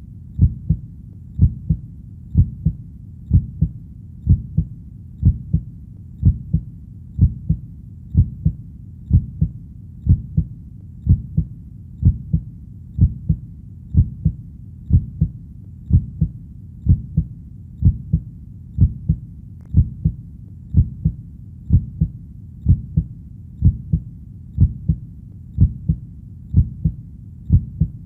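Heartbeat sound: a steady lub-dub, each beat a pair of low thumps close together, repeating evenly about once a second over a faint low rumble.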